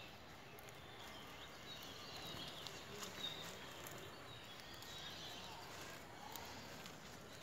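Faint outdoor ambience of goats grazing and moving through tall weeds, with scattered soft rustles and small clicks, and faint high chirping in the background.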